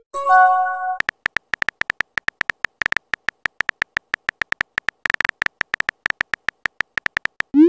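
Rapid, even run of short beep-like keyboard clicks from a phone-chat typing sound effect. A short rising pop at the very start is followed by a brief chime-like note, and another rising pop comes at the very end as a message is sent.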